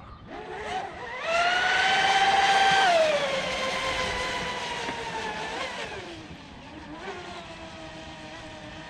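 Electric RC catamaran's motor whine on a full-throttle run. The whine rises sharply about a second in, holds loud and high-pitched for about two seconds, then falls in pitch and fades to a quieter whine.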